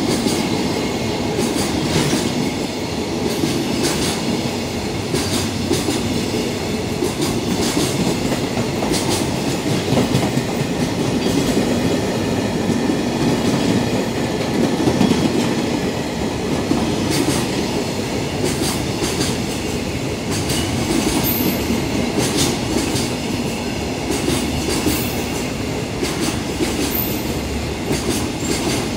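Container wagons of a freight train rolling past at speed: a steady rumble with wheels clattering over the rail joints.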